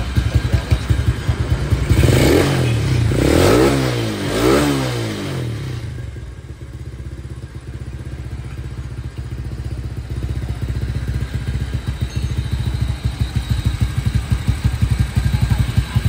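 Modified Yamaha Exciter motorcycle engine with an Uma Racing exhaust idling with a choppy pulse, blipped three times about two to five seconds in, each rev rising and falling back, then settling to an even idle.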